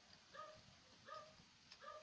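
Faint run of short, high animal calls, about two a second, each one a brief pitched yelp or whimper.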